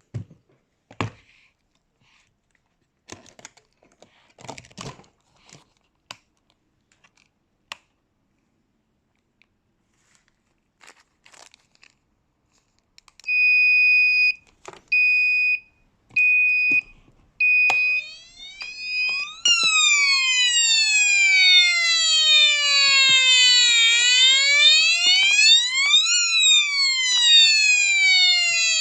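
Airsoft bomb-simulator case: a few scattered clicks of handling and key presses, then about 13 s in it starts a steady electronic beep repeating roughly every second and a half. From about 18 s a loud electronic siren joins, sliding slowly down and back up in pitch while the beeping goes on: the prop's alarm going off.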